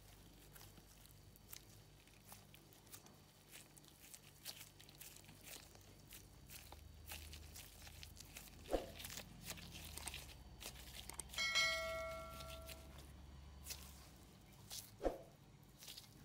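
Faint crinkling and soft scattered clicks of disposable plastic gloves as hands squeeze and roll a ball of potato dough around a meat filling. A brief pitched ring, the loudest sound here, comes about two-thirds of the way through.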